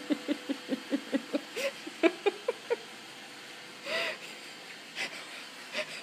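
A person laughing breathily in a quick run of short 'heh-heh' pulses, about five a second, then a wheezy intake of breath about four seconds in. A Roomba robot vacuum hums steadily underneath.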